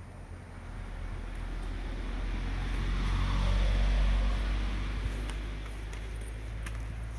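A motor vehicle passing, its noise swelling to a peak about four seconds in and then fading, over a steady low hum. A few light clicks follow near the end.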